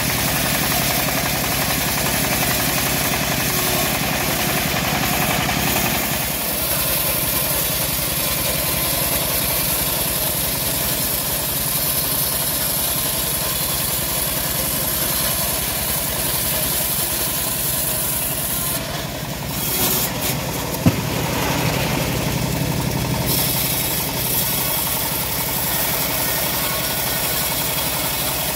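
Homemade bandsaw sawmill running steadily, its blade ripping a teak log with sawdust spraying. The cutting sound thins about six seconds in while the machine keeps running, and a single sharp knock comes about 21 seconds in.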